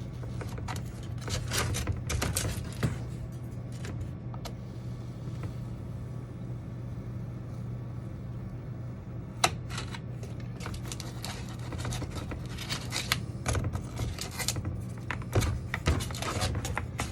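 Irregular crackles, scrapes and clicks of foam pieces being handled and cut, in clusters, over a steady low hum.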